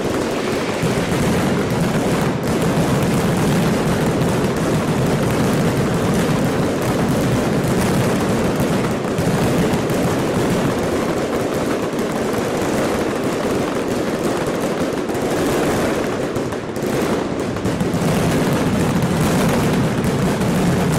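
A long string of firecrackers going off in rapid, unbroken bangs, a dense continuous crackle.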